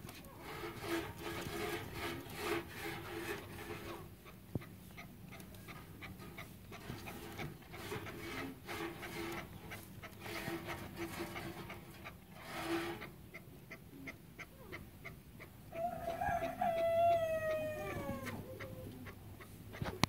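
Chukar partridges calling: runs of quick, rhythmic clucking notes, then, about three-quarters of the way through, a single drawn-out call that falls in pitch.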